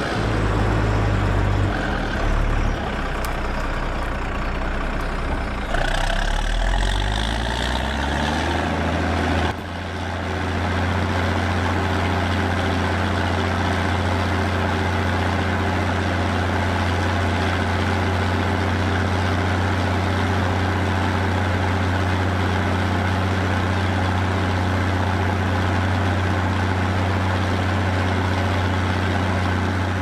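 Fendt Favorit 824's six-cylinder diesel working under plough load through an open exhaust stack, its pitch rising and falling between about six and nine seconds in. At about ten seconds the sound cuts abruptly to a steady, unchanging engine-like hum for the rest.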